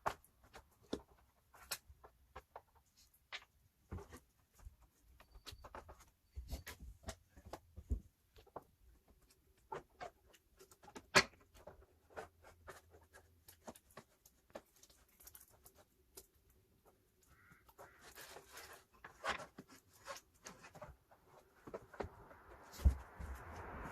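Irregular clicks, taps and knocks of hand tools and plastic engine-bay parts being handled as the charge pipe and fan are removed from a diesel engine bay. A rising hiss comes in near the end.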